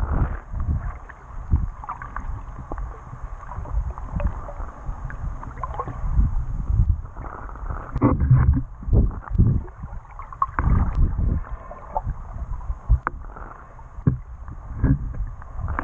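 Muffled underwater water movement heard through a GoPro's waterproof housing: irregular low thumps and sloshing with scattered small clicks, dull with little treble.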